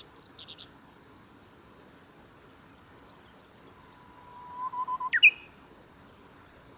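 Japanese bush warbler singing its 'hoo-hokekyo' song once: a long, low, steady whistle that swells, then a sharp, loud, quick flourish about five seconds in. A few quick high chirps end just after the start.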